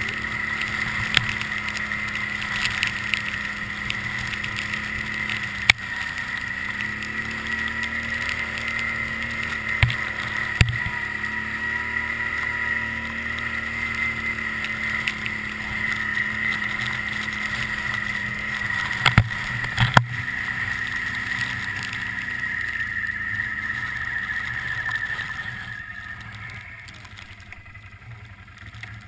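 Can-Am Outlander 800 Max ATV's V-twin engine running steadily under way, with a high steady whine and a few sharp knocks. The sound drops off over the last few seconds.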